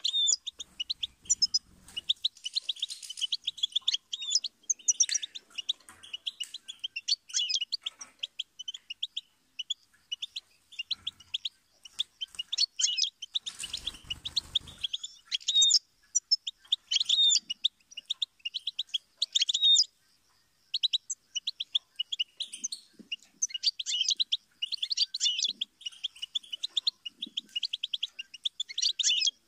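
European goldfinch song: fast twittering runs of short, high chirping notes broken by brief pauses. A short burst of rustling noise comes about halfway through.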